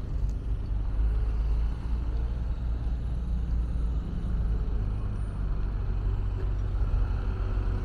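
City street traffic: vehicle engines and tyres making a steady low rumble.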